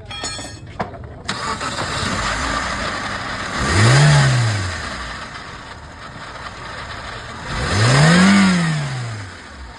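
Suzuki Swift petrol engine running with one cylinder misfiring. It starts about a second in and is then revved twice, each rev rising and falling in pitch over about a second and a half.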